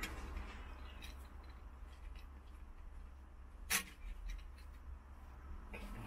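Quiet handling of wires and crimped spade connectors at the VW bay's roof interior-light fitting: scattered small clicks, and one sharp click a little past halfway.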